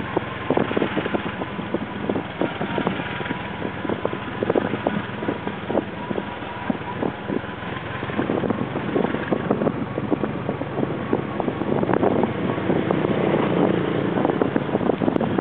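Small motorbike engine running steadily under way, with wind buffeting the microphone and a frequent crackle of short knocks from rain and road on the ride.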